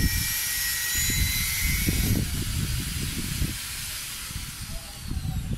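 Wind rumbling unevenly on the microphone, with a steady high hiss that drops away about two seconds in.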